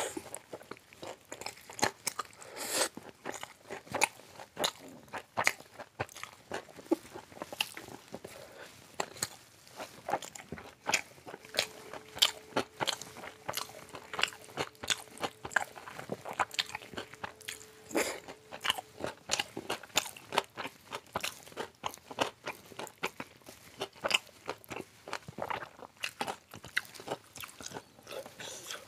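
Chewing and biting of a fried paratha roll, a dense run of irregular crisp crunches and clicks, with fingers tearing the flatbread.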